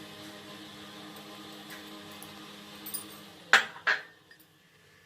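A spoon clinking twice against a bowl, about three and a half seconds in, as spice is tapped off it. Beneath it runs a low steady hum that stops just before the clinks.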